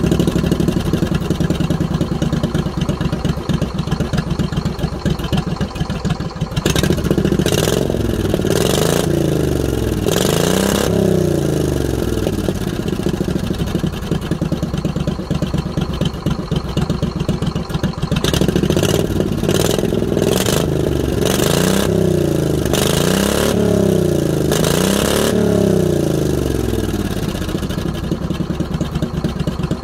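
26 hp Briggs & Stratton V-twin lawn tractor engine with true dual exhaust, idling and then revved in quick throttle blips, rising and falling in pitch. The blips come in two bursts, one about seven seconds in and a longer one from about eighteen seconds, with steady idle between and after.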